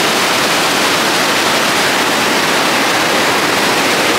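River water rushing over a weir and churning into white water below: a loud, steady rush.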